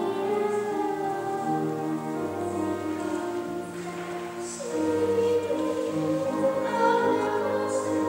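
Children's choir singing a slow song in held notes over an accompaniment with a low bass line; the singing swells louder about halfway through.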